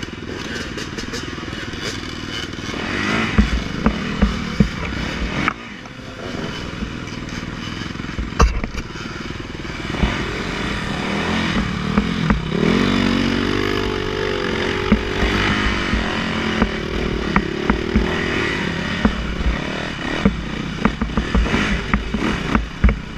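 Dirt bike engines idling and blipping, among them a 2015 Yamaha YZ450F's four-stroke single. About twelve seconds in, one engine revs up and holds, its pitch wavering for a few seconds. Sharp knocks and clatter run throughout as the bikes are worked through brush and over roots.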